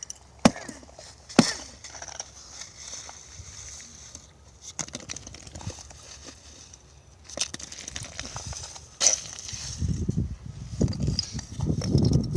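Bernese mountain dog working at a patch of ice: two sharp cracks in the first second and a half, scattered faint crackling, then from about nine seconds in a denser run of crunching and scraping.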